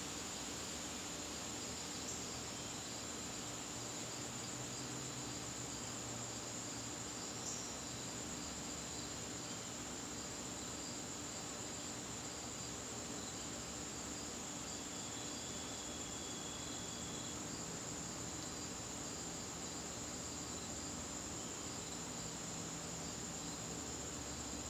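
Crickets chirping in a steady, high-pitched trill, with a fainter, evenly pulsed chirp beneath it.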